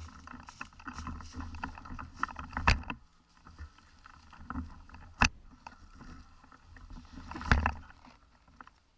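Rustling movement noise with a low rumble on the microphone, broken by three sharp clicks or knocks about two and a half seconds apart.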